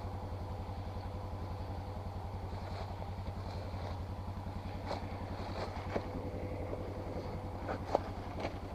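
Four-wheeler (ATV) engine running steadily at low speed with an even, rapid putter. There are a couple of sharp light knocks about six and eight seconds in.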